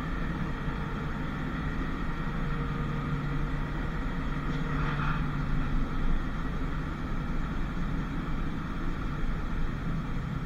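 Historic Basel tram running: a steady rumble with a constant low hum, and one short higher-pitched sound about five seconds in.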